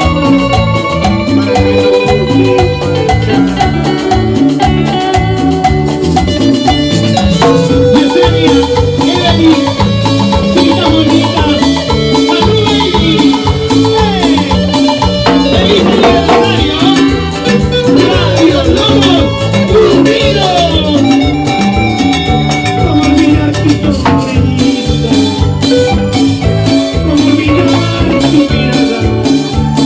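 Live band playing Latin dance music with a steady beat, with sustained melody notes over the percussion.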